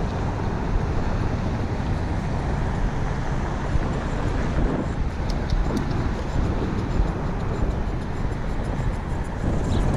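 Steady rush of riding noise from a bicycle-mounted camera: wind over the microphone mixed with tyres on wet pavement and car traffic passing on the road alongside.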